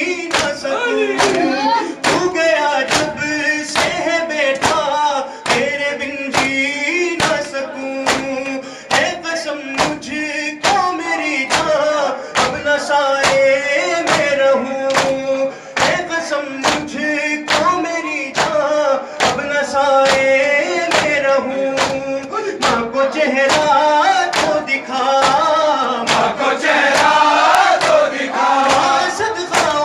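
Male voices chanting a nauha, an Urdu mourning lament: a lead reciter on a microphone with a group of men joining in. A steady rhythm of sharp claps runs under it all, the men beating their chests with open hands (matam).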